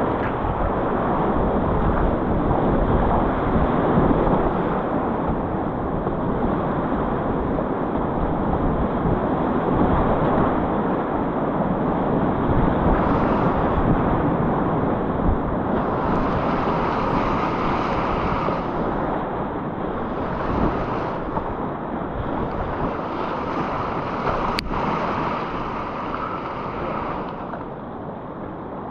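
Whitewater rushing steadily through a river rapid, with wind noise on the microphone. There is one sharp click late on.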